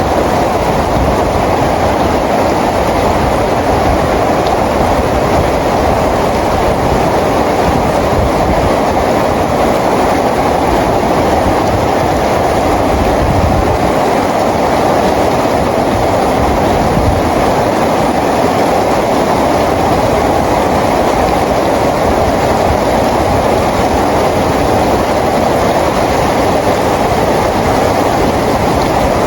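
Steady rain falling, a dense, even hiss that holds level without pause.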